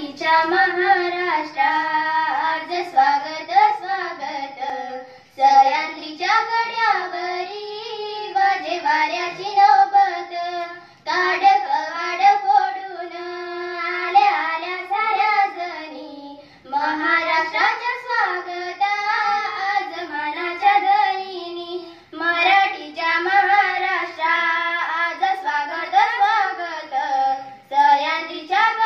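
Two teenage schoolgirls singing a song into a microphone, unaccompanied, in phrases of about five seconds with a short breath between each.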